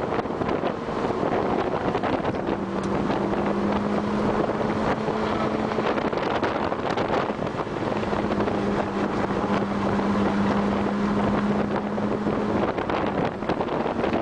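Car engine heard from inside the cabin while lapping a race track, holding a steady note that dips briefly a few times. Heavy wind and road noise run underneath it.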